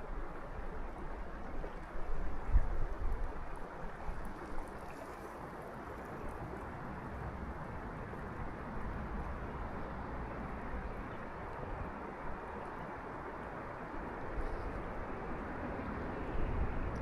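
Steady rush of water flowing at a frozen waterfall, with low wind buffeting on the microphone in the first few seconds.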